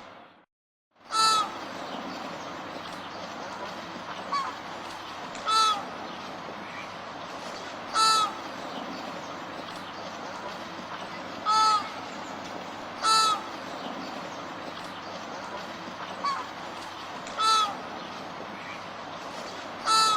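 Flamingos honking: about seven loud, short goose-like honks a few seconds apart, with a couple of fainter calls between them, over a steady background din. The sound drops out briefly just after the start, then resumes.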